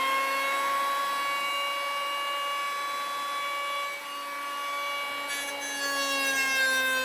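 Electric hand planer running and cutting across plywood with a steady high motor whine, its pitch wavering under load in the last couple of seconds. This is a cross-grain cut, which the builder later warns against on plywood.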